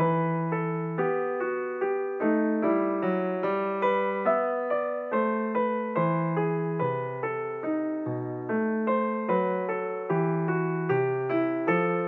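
Background piano music: a steady tune of evenly paced notes, about two a second.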